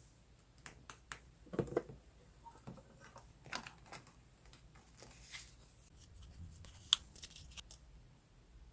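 Paper being handled for a scrapbook collage: scattered rustles, tearing and light taps, with a sharp click about seven seconds in.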